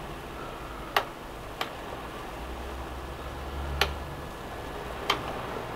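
Electric kettle's power switch clicked four times as it is flicked on and off to keep foaming wort near the boil from boiling over before the hot break. A low rumble of the heating kettle swells between the second and third clicks.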